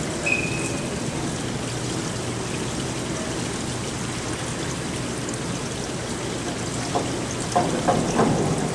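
Steady hiss of an indoor pool hall, with a short high whistle blast about a quarter second in: the referee's signal to the diver. Near the end comes a quick series of sharp knocks from the diver's approach steps on the springboard.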